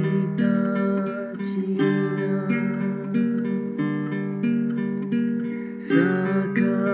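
Acoustic guitar playing an instrumental passage of a song, plucked notes ringing over one another.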